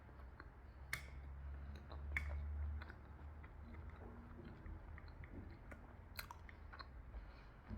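A person chewing food close to the microphone, with a few sharp clicks about a second in, just after two seconds and again about six seconds in.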